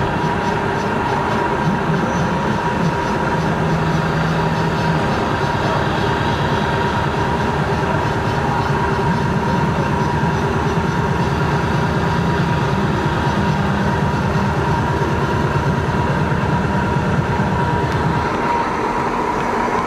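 FNC 25 milling machine converted to a CNC lathe, running: steady machine noise with a constant high whine and lower motor tones that change pitch in steps.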